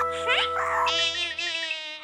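Cartoon background music with held notes, joined about a second in by a wavering, buzzing sound effect that cuts off just before the end.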